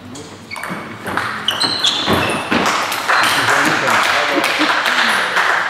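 Table tennis rally: a few sharp ball clicks and short squeaks of shoes on the hall floor. From about two seconds in, spectators clap and call out loudly as the point ends.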